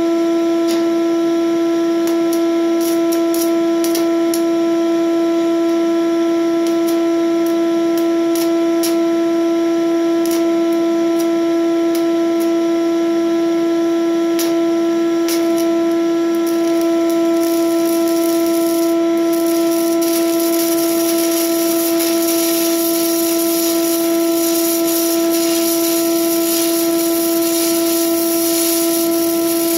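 Shop vacuum running as a welding fume extractor with a steady droning whine. Sharp scattered clicks come in the first half, and from about halfway through the continuous crackling hiss of a 6011 stick-welding arc joins the drone.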